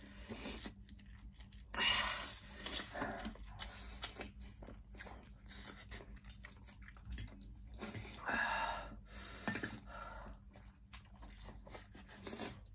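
Two people eating instant noodles: close chewing and slurping with small mouth clicks, and louder slurps about two seconds in and again near the middle.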